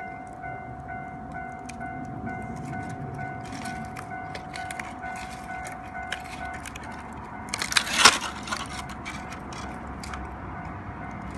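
Bamboo and branch bonfire crackling with scattered sharp cracks, under a steady high whistle, typical of steam escaping from heated bamboo, that stops about six and a half seconds in. About eight seconds in comes a loud burst of cracking pops, the loudest sound here.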